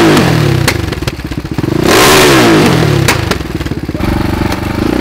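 Dirt bike single-cylinder engine revved hard twice, rising and falling in pitch and dropping back to an uneven idle between blips, with a few sharp cracks from the exhaust. Near the end the engine runs steadily at a lower pitch.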